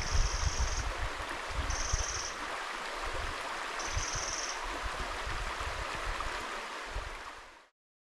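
Mountain stream flowing steadily, with low gusty rumbles on the microphone. Three short, thin, high-pitched sounds of even pitch come over it, about two seconds apart. The sound fades out and stops near the end.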